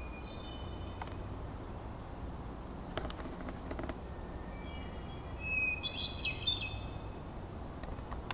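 Hermit thrush singing: three separate phrases, each a held opening note followed by a quick run of higher notes. Each phrase is pitched differently, and the loudest comes about six seconds in.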